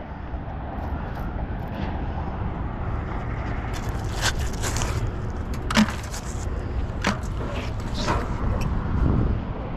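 Gloved hand scraping black muck and debris off a magnet-fishing magnet, with a few short scrapes and clicks over a steady low rumble.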